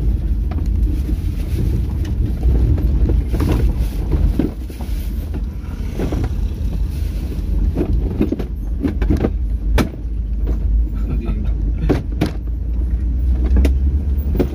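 A vehicle travelling over a rough, stony road: a steady low rumble with irregular sharp knocks and jolts from the bumps.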